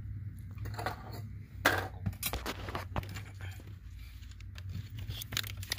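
Hands working around a car's under-dash fuse panel and plastic trim: scattered clicks, scrapes and rustles of plastic and wiring, with one sharp click about a second and a half in, over a low steady hum.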